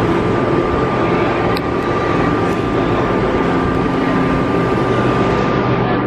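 Loud, steady rumble of a moving vehicle, with a thin steady whine above it.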